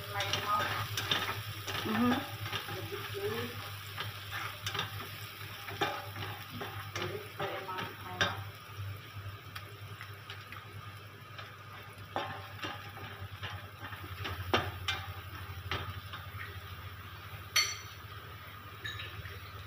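Plastic spatula scraping and tapping a nonstick frying pan, stirring food frying in oil with a light sizzle. The strokes come thick and fast for the first eight seconds or so, then thin out, with a sharp click near the end.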